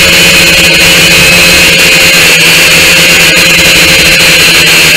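Small quadcopter drone's electric motors and propellers buzzing steadily with a high whine, picked up loud and crackly by its onboard camera's microphone.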